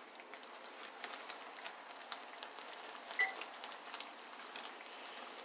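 Fry bread dough deep-frying in a pan of hot oil: a steady sizzle of many small pops and spits.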